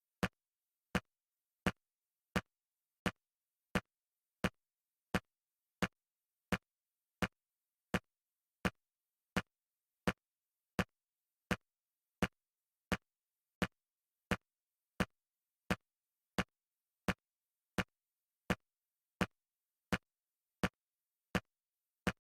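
ALIENS-style motion tracker scanning pulse: short, sharp clicks repeating steadily about every 0.7 seconds, with no contact blips between them, the tracker's signal that nothing is close.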